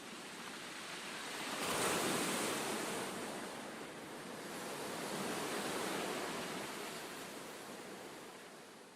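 Ocean waves washing in, swelling twice (about two seconds in and again around six seconds) and fading away near the end.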